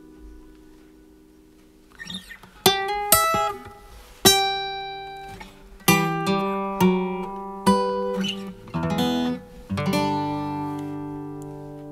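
Solo acoustic guitar played in an unhurried instrumental phrase: a chord rings and fades, then single plucked notes and strummed chords, a quick run of notes, and a final chord struck near the end and left ringing.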